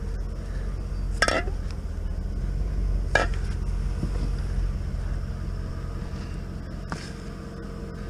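Scrap metal being handled: three sharp metallic clanks, about two to four seconds apart, over a steady low rumble.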